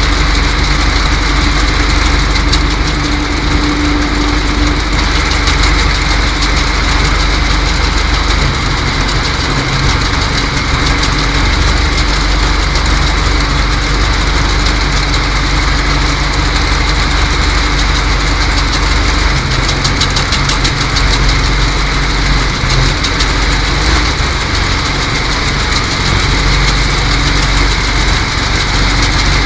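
Water hyacinth harvester's engine running steadily at a constant speed.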